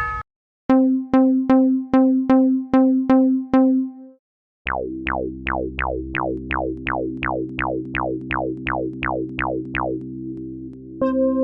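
Synthesized, altered railroad-crossing warning bell: eight evenly spaced low pitched dings, a short pause, then a faster run of dings that each fall in pitch over a held low chord. A new steady tone starts near the end.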